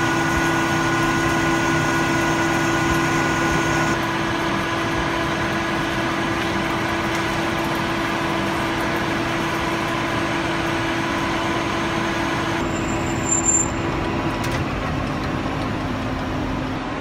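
Metal lathe running under cut, turning and then boring a metal tube: a steady motor and spindle hum with several held tones, whose pitch mix changes abruptly about 4 seconds in and again past the middle. A short knock sounds about 13 seconds in.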